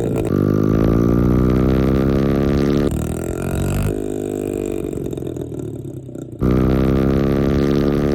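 Honda 50cc dirt bike's single-cylinder four-stroke engine running with its muffler removed, straight out of the open exhaust port, being revved. The pitch climbs, drops about three seconds in, runs lower and quieter for a few seconds, then jumps back up sharply about six seconds in.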